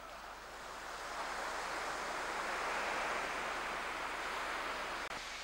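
Sea water washing against the rocks and quay: a rushing noise that swells to a peak about halfway through and then eases off.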